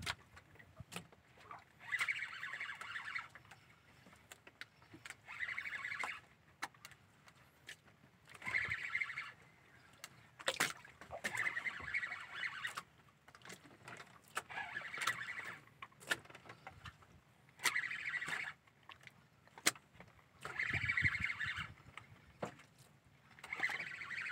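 Fishing reel being cranked in short whirring bursts, about one every three seconds, as a hooked fish is pumped and wound up on a bent jigging rod, with scattered light clicks between.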